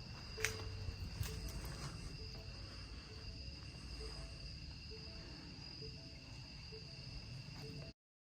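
Crickets chirring steadily, with a soft tick-tock repeating a little faster than once a second, typical of a Ford truck's turn-signal flasher. The sound cuts off suddenly near the end.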